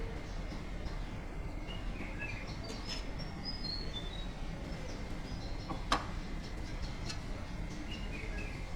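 Birds chirping: a string of short high chirps a few seconds in, over a steady low background rumble, with one sharp click about six seconds in.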